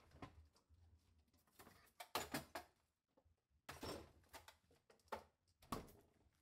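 Kitchen refrigerator door being opened and closed and a plastic bag of marinated beef being handled: a string of soft knocks and rustles, loudest about two seconds in.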